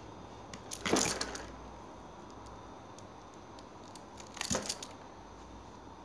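Two short bursts of metallic clinking and rattling from a small folding multitool being handled, about a second in and again about four and a half seconds in.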